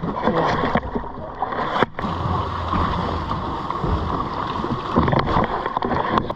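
Water splashing and sloshing at the side of a boat as a hooked fish thrashes at the surface beside a landing net, under a steady rushing noise.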